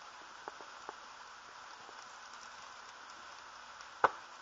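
Trangia alcohol burner's flame hissing steadily under a stainless canteen cup of heating water, with a few faint ticks early on and one sharp click about four seconds in.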